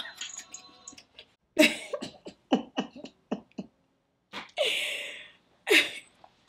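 A woman laughing in a run of short, quick bursts, then a breathy exhale and one last burst of laughter.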